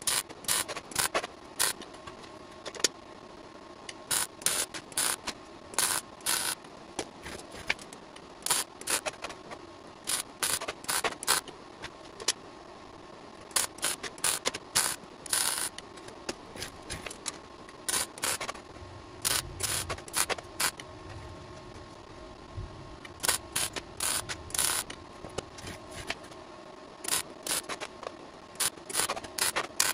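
MIG welder striking short arcs over and over: bursts of crackling arc noise, each lasting well under a second to about a second, with brief pauses between them, like a run of tack and stitch welds.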